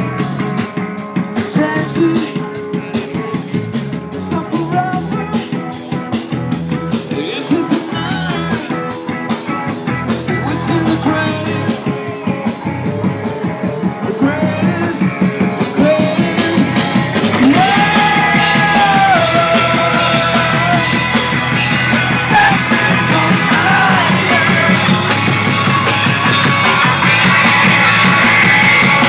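Live rock band playing: drum kit keeping a steady beat under bass and guitar. About halfway through the music grows louder and fuller, and a voice sings a held melody line over it.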